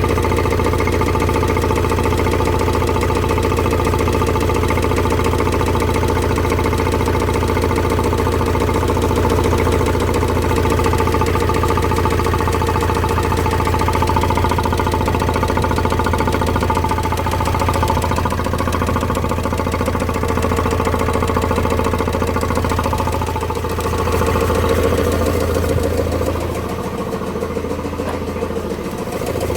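Vauxhall Vivaro's M9R 2.0-litre diesel engine idling with a steady, rhythmic knock from the bottom end. The knock comes from crankshaft bearings that have spun on the crank through lack of oil feed from a failing oil pump. The sound drops slightly for a few seconds near the end.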